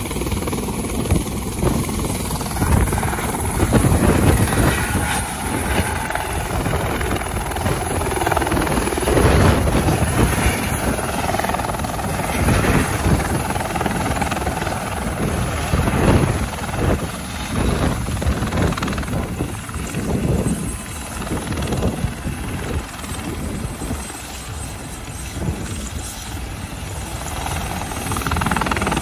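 Eurocopter EC130 tour helicopter with a shrouded tail fan lifting off and hovering close by: loud turbine and main-rotor noise that swells and fades.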